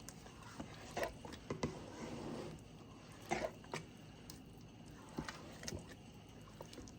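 Spatula stirring thick mashed sweet potato mixture in a bowl: soft squishing with irregular scrapes and taps against the bowl.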